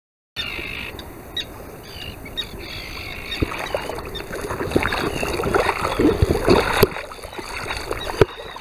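Water splashing and sloshing, getting busier through the middle, with a few short gull calls in the first couple of seconds.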